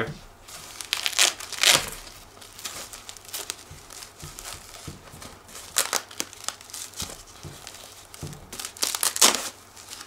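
Fabric sun hood rustling and crinkling as it is handled, with several short rasps of its Velcro edges being worked together, the loudest about a second and a half in, about six seconds in and near the end.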